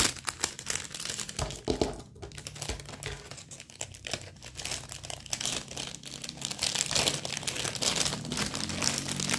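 Clear plastic packaging crinkling and rustling as it is handled, a run of crackles that gets denser toward the end.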